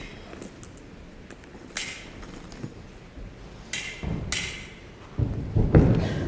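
Foil fencing footwork: feet thudding and stamping on the stage, with sharp clicks of the blades meeting. The sounds come in scattered spurts, with the heaviest thuds in a quick flurry near the end.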